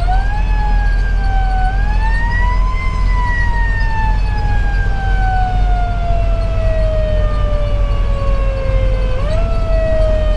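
Federal Q2B mechanical siren winding up, dipping briefly, rising to a peak about three seconds in, then slowly coasting down in pitch for about six seconds before being wound up again near the end. Under it is the steady low rumble of the fire engine's diesel and the road, heard from inside the cab.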